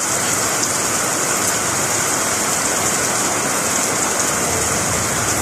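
Steady heavy rain, an even, unbroken hiss with no breaks.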